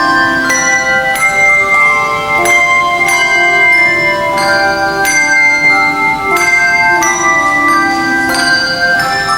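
Handbell choir playing: chords of bells struck in a steady rhythm, the tones ringing on and overlapping.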